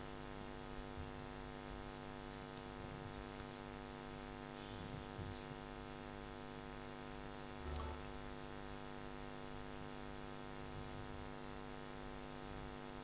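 Steady electrical mains hum through the altar microphone's sound system, with a few faint, brief soft knocks.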